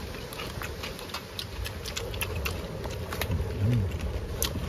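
Irregular crisp clicks and crackles of people chewing crispy batter-fried coconut grubs, over a low background rumble, with a short low hum about three and a half seconds in.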